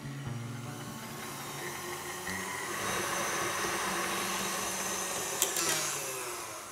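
KitchenAid tilt-head stand mixer motor running, kneading a stiff cannoli-shell dough in its steel bowl with a steady whirr. There is a click about five seconds in, and then the whirr fades.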